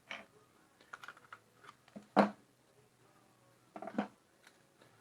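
Light clicks and taps of small hard parts being handled, with a louder knock about two seconds in and a short cluster of knocks near four seconds.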